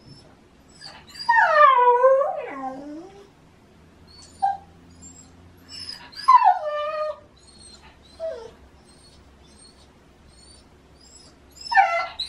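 Shiba Inu whining and yowling at a door: long cries that slide down in pitch, three of them, with two short yelps between. These are the noisy demands to go out that its owner puts down to the autumn mating season.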